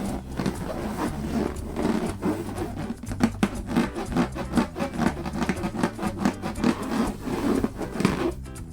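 Hands squeezing and rubbing latex balloons: quick, irregular rubbing and squeaking strokes over quiet background music. The rubbing stops near the end.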